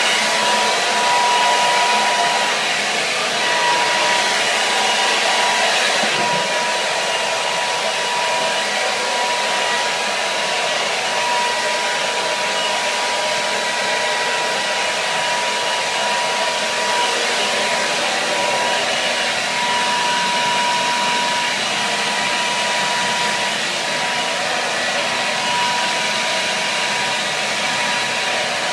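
Hair dryer running steadily: a constant rush of blown air with a thin motor whine that fades in and out.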